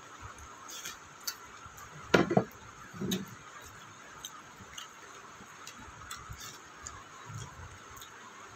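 Close-up eating sounds: scattered small wet mouth clicks and smacks of someone chewing a mouthful of rice and dal, with two louder short sounds about two and three seconds in.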